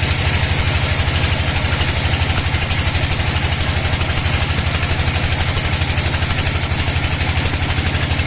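An engine running steadily without load, with a fast, even low throb and a constant hiss above it.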